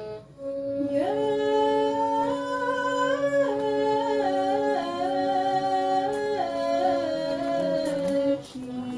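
Live music: a slow melody moving in steps above a steady held drone note. The melody stops about eight and a half seconds in, and the drone goes on a little lower.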